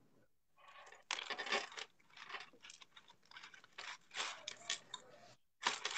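Crackling, scraping handling noise from hands touching and moving a device close to its microphone: a dense run of irregular crackles that begins about a second in and breaks off abruptly shortly before the end.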